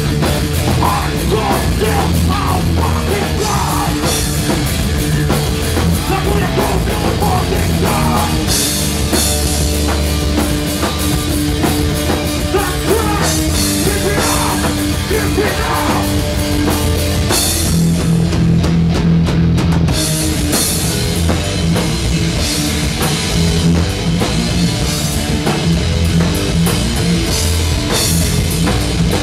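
A hardcore punk band playing live through a bar's PA: distorted electric guitars, bass and a drum kit going hard, with the vocalist singing into the microphone in places.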